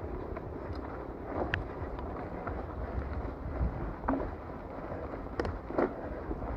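Rigid-fork mountain bike being ridden over a dirt trail: wind rushing over the microphone and tyres rolling, with a few sharp knocks and rattles from the bike over bumps.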